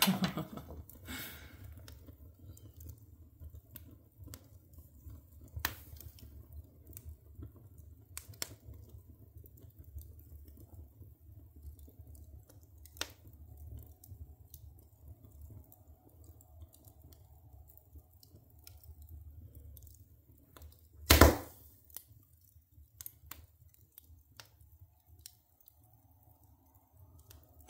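Wood fire burning in a wood stove, crackling with scattered sharp pops and snaps over a low steady rumble. One louder knock stands out about three-quarters of the way through.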